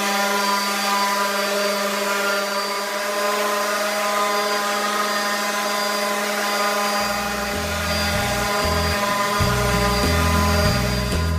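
Electric random orbital sander running steadily on a wooden cabinet door panel during finish sanding, with a steady motor hum. Low bass notes of music come in under it for the last few seconds.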